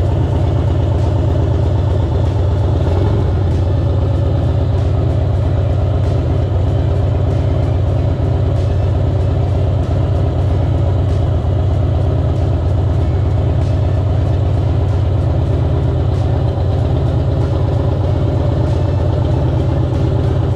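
A vehicle engine running steadily and loudly, with a deep even drone that holds without change and cuts off suddenly at the end.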